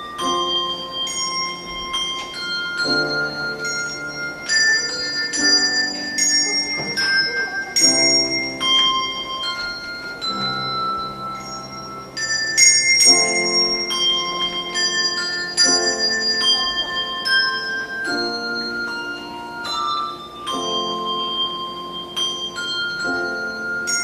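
Handbell choir ringing a melody, bells struck one after another and left to ring, over grand piano chords.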